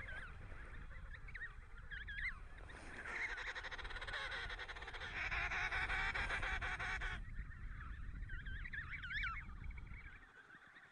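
Emperor penguin chicks calling with high, wavering whistles, overlapping into a dense chorus in the middle that cuts off suddenly; a few more calls follow and fade out near the end.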